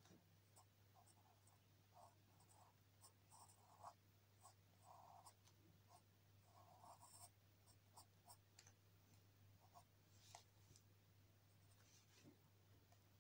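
Faint scratching of a pencil sketching lightly on paper in short, irregular strokes, over a low steady hum.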